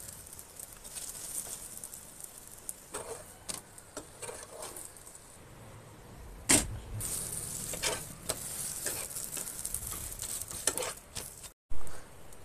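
Chapati cooking on a hot pan, with a steady high sizzle. It is broken by several knocks and clicks from the pan and utensils as the bread is handled; the loudest knock comes about six and a half seconds in, and another sharp knock comes near the end.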